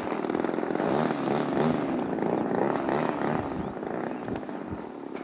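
30cc engine of a model Edge 540 aerobatic plane running in flight, its pitch repeatedly rising and falling. It grows fainter near the end.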